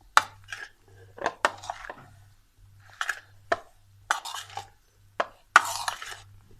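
A spoon knocking and scraping against a bowl as macaroni salad is tossed and mixed: a string of sharp clacks at irregular intervals, with short wet scrapes between them.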